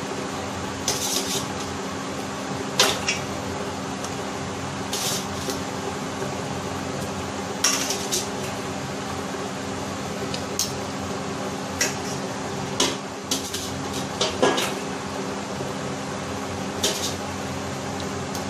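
Metal tongs clinking against a stainless steel pot as chicken feet are lowered into the water, in irregular sharp clinks every second or two. Under them runs a steady low hum.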